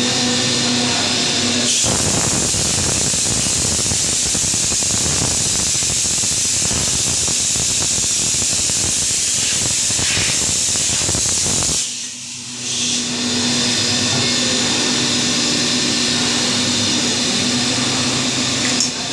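CNC milling machine cutting a metal mould under coolant mist: a steady machine hum with several tones, overlaid by the hiss of the mist spray. For most of the first half the sound turns into a loud, rough hissing cutting noise. It briefly drops away a little before the midpoint, then the steady hum and hiss resume.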